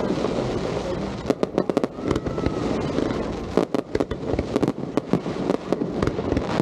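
Aerial fireworks going off in quick, irregular succession: many sharp bangs, some bunched close together.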